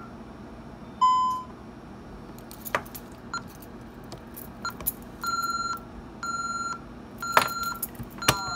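Honeywell security-system keypad beeping: one loud beep about a second in, then short beeps as keys are pressed. After the system is armed Away, the exit-delay warning starts: evenly spaced half-second beeps, about one a second. There are sharp clicks of fingers on the keypad near the end.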